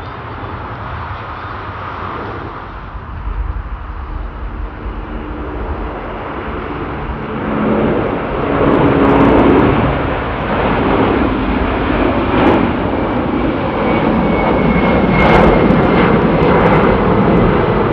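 Jet airliner's engines at take-off thrust: a broad rumble that swells about halfway through and stays loud, with crackle and a faint whistle.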